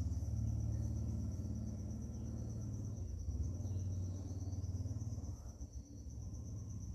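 Electric fan running with a steady low hum that eases slightly about five seconds in, with crickets chirping in a high, even trill over it.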